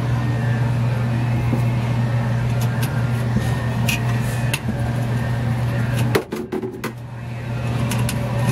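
Steady electric motor hum, dipping for a moment about six seconds in, with a few light metallic clicks as a screwdriver works a screw on the sheet-metal bracket of a vending machine's evaporator coil.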